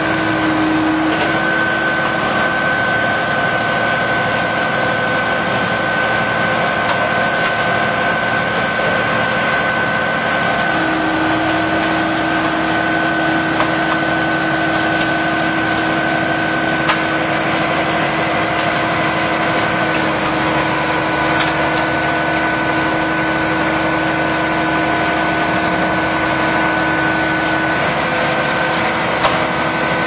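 Concrete mixer truck's engine running steadily. A steady whine rides over it, cutting out about a second in and returning about eleven seconds in.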